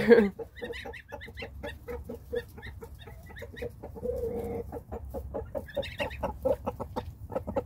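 Chickens clucking and goslings peeping: a rapid run of short calls, with a longer held note about four seconds in and another shortly after six seconds.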